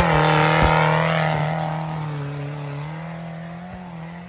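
Small off-road 4x4's engine held at steady revs while its wheels spin in mud and it pulls away, the sound fading steadily as the vehicle drives off.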